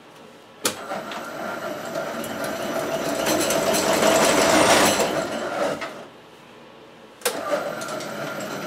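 Clausing 6930 metal lathe, driven through a VFD, starting with a sharp clunk as the spindle lever is engaged, then running and growing louder over several seconds. It stops about six seconds in, then starts again with another clunk near the end.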